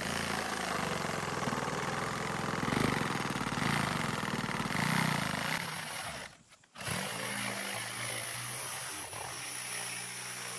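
Reciprocating saw cutting through asphalt shingles and roof decking, running steadily. It stops briefly about six seconds in, then starts cutting again.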